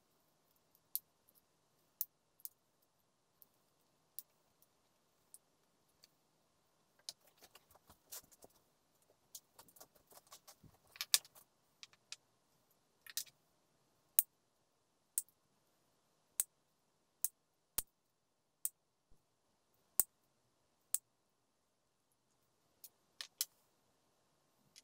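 Hard plastic parts of a soap dispenser being cracked and nipped apart with pliers. There is a spell of crackling with a couple of loud snaps near the middle, then single sharp clicks about once a second.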